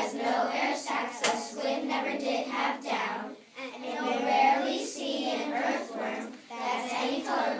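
A group of children singing together in unison, with some hand claps.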